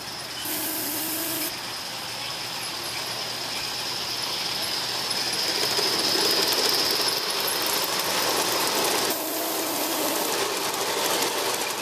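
Gauge 1 live-steam Aster Union Pacific Challenger locomotive running past with a long train of hopper cars: steam exhaust and the rattle of wheels on the track, growing louder to a peak about six seconds in as the engine passes. A brief hiss comes near the start, and quick clicking of the cars' wheels follows in the second half.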